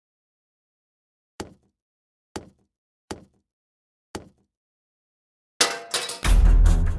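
Four short, sharp knock sound effects about a second apart, then a loud crash near the end that runs straight into music with a heavy bass beat.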